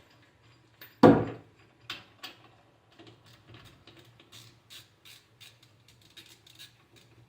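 Hand tools and metal parts being handled during rear-axle work: one loud metallic clank about a second in, then a run of light, irregular clicks and taps. A faint steady hum underneath.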